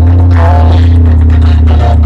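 Very loud music blasting from a roadshow DJ sound-box system, a song with added beats, dominated by a heavy, steady bass under a wavering melody.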